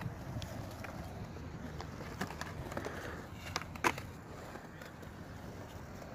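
Skateboard on concrete: a few sharp clacks as a rider steps onto and works the board, the loudest about four seconds in, over a low steady rumble.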